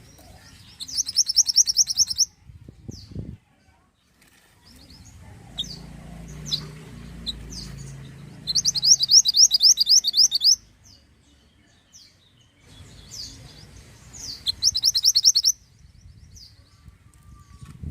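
A small songbird sold as 'mantenan' is singing. Three bursts of a fast, high trill of rapidly repeated notes come about six seconds apart, each lasting one and a half to two seconds, with short high chirps scattered between them.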